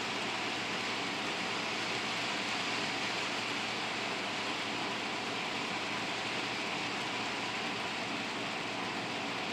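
HO scale model freight train running around the track: a steady hiss and rumble of wheels on the rails with a faint motor whine.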